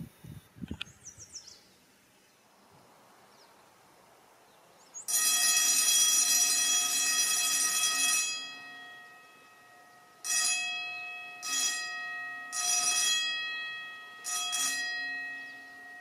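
Brecco Hong Chang HC-1120 120-volt electric fire alarm bell ringing loudly for about three seconds, then ringing out. It then sounds again in four short bursts, each fading away.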